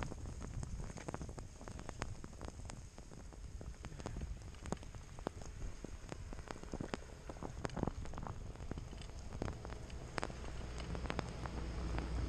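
Snow scraping and crackling under riders sliding downhill, with many small clicks, and wind rumbling on the microphone that grows stronger near the end.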